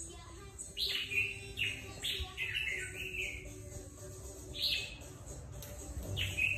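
Caged red-whiskered bulbul singing short, falling whistled phrases: a quick run of several notes in the first half, then single phrases a little after the middle and near the end.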